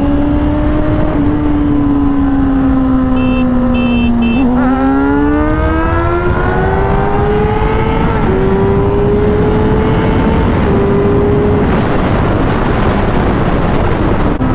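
Sport motorcycle engine under heavy wind noise at riding speed, cruising with its pitch sagging slightly. About four seconds in it opens up and accelerates hard, pitch climbing through the gears with upshifts around eight and ten seconds. Three short high beeps sound just before the acceleration.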